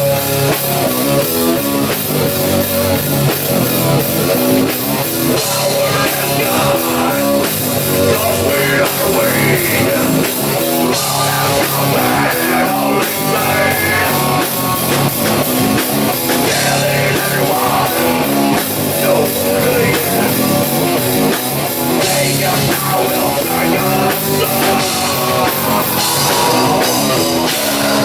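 Live rock band playing a song: guitar and drum kit, loud and continuous.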